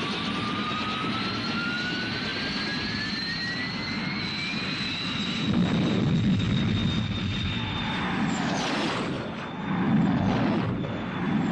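Jet aircraft engines in a film sound effect, as the Air-Sea Rescue jets launch. A whine rises over the first five seconds above a steady rushing noise, then the engine sound swells louder about six seconds in and again about ten seconds in.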